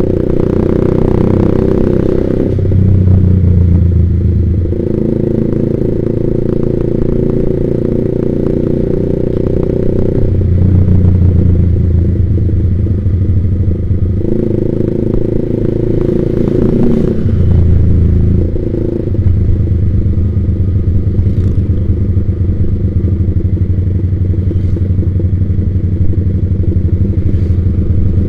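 Yamaha Vixion single-cylinder motorcycle engine with a Proliner aftermarket exhaust, running as the bike is ridden. Stretches of steady note on the throttle alternate with rougher, rattly off-throttle stretches.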